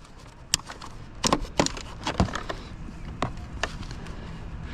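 A few separate sharp clicks and knocks, spread out over a few seconds: hand tools and scrap being handled while metal clippers are fetched to snip off a cord.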